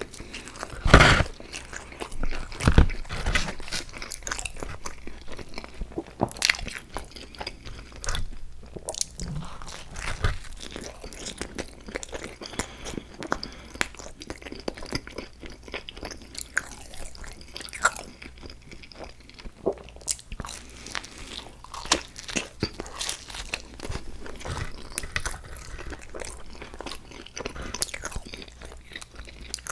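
Close-miked eating: crunchy bites and chewing, heard as irregular sharp crackles, the loudest bite about a second in.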